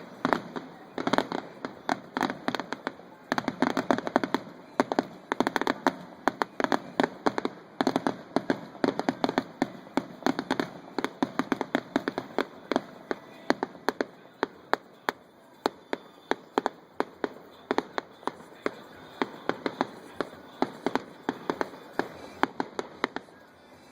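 Fireworks display going off in quick succession: a dense run of sharp bangs and crackles, several a second, thinning out near the end.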